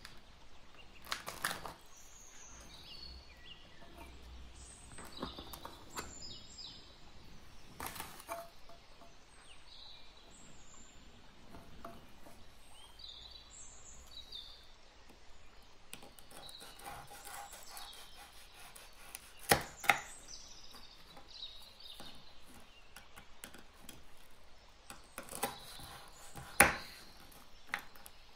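Savoiardi (ladyfinger) biscuits being snapped into pieces on a wooden board: a handful of sharp snaps and knocks, two close together about twenty seconds in. Birds chirp throughout in the background.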